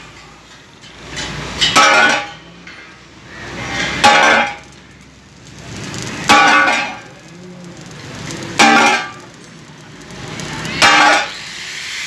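Sledgehammer blows on a curved steel sheet for a concrete mixer, held over a wooden beam: five heavy strikes about two and a half seconds apart, each with a short metallic ring. A rising swell of sound leads into each blow.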